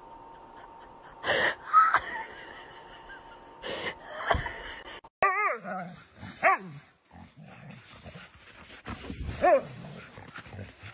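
A husky giving several short yelping, howl-like calls from about halfway through, the first with a wavering pitch. Before that come a few loud knocks and rustles.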